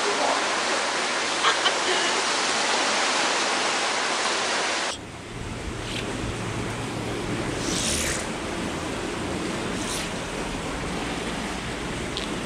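Steady rushing hiss of water. About five seconds in it drops in level and a low rumble comes in under it, with a couple of brief faint scrapes later on.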